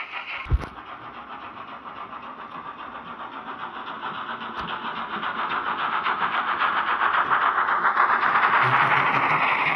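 H0-scale model steam locomotive running past with a freight train, its rhythmic running sound growing steadily louder as it comes closer. A brief thump about half a second in.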